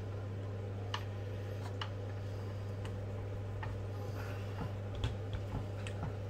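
Scattered light clicks and taps as plastic and aluminium RC truck chassis parts are handled and a hex driver works at the motor mount screws, the loudest about a second in and about five seconds in. A steady low hum runs underneath.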